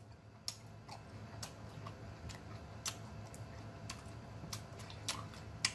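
Close-miked eating of cantaloupe: scattered soft wet clicks and smacks from chewing, at irregular intervals about once or twice a second, over a faint steady low hum.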